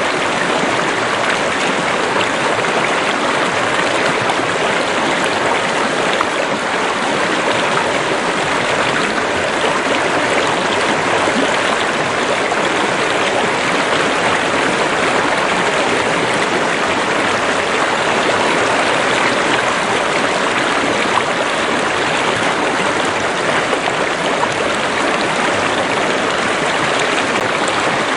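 Stream or river water running steadily over rocks, a constant rushing and babbling with no breaks.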